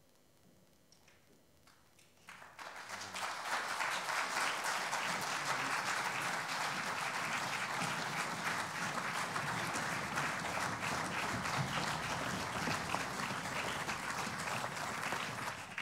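Audience applauding. It starts about two seconds in, after a near-silent pause, swells quickly and holds steady.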